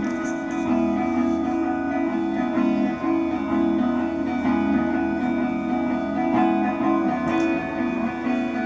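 Live music led by a guitar playing sustained notes over a steady low drone.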